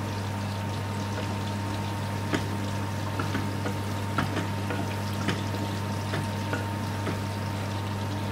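Chopped onion and green pepper frying in ghee in an aluminium pan: a steady sizzle with scattered light clicks of a wooden spoon stirring against the pan, over a steady low hum. The sound cuts off suddenly near the end.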